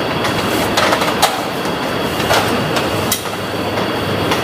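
Steady mechanical rumble with scattered sharp clicks and knocks at uneven intervals.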